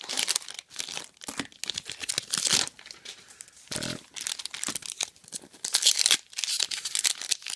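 Plastic card packaging being torn open and crumpled: irregular crinkling and ripping of a trading card box's wrap or pack wrappers.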